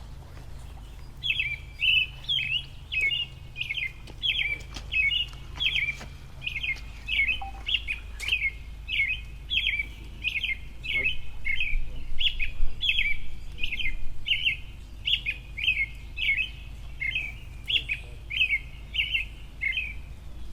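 A bird calling over and over, short high chirps repeated at about one and a half a second with a steady rhythm, beginning about a second in.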